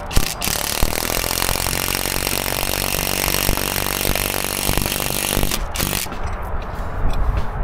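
Cordless impact driver running under load, driving a screw through a solar-panel roof-hook bracket into a rafter. It runs steadily for about five seconds and stops with a short final burst.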